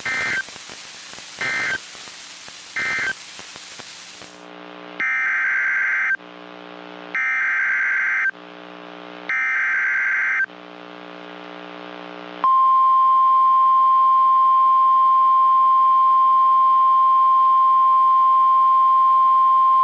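Emergency Alert System SAME data tones on NOAA Weather Radio. First come three short warbling bursts of end-of-message code over radio static, closing the previous warning. Then three longer bursts of about a second each form the header of a new warning, and from about twelve seconds in the steady, single-pitch Weather Radio warning alarm tone sounds.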